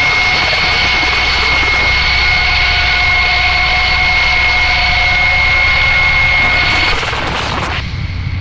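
Power-electronics noise music: a loud, dense wall of distorted noise with a steady high whine held over it. It cuts in suddenly and thins out about seven seconds in.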